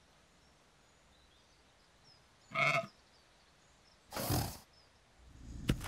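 Quiet countryside ambience with faint birdsong, broken by two short cartoon animal vocal sounds: a brief pitched call about two and a half seconds in, and a breathy grunt about four seconds in.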